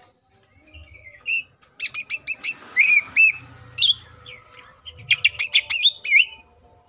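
Male greater green leafbird (cucak ijo) singing a varied song: two quick runs of sharp, rapid notes, one about two seconds in and one about five seconds in, with a few slurred whistles between them.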